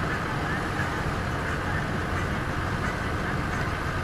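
Steady engine and road noise heard inside a moving car's cabin, an even low rumble with no sudden events.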